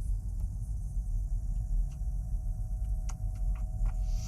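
Low steady rumble with a faint steady hum, and a few light scattered clicks.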